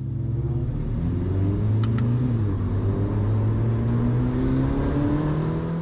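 Ferrari 488 Challenge car's twin-turbo V8 pulling away at low revs, its note rising, dipping briefly about two seconds in, then climbing again.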